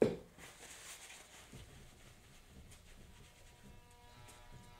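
A sharp knock at the start, then faint rubbing and rustling of a paper towel wiped over wet acrylic paint on the painting's surface.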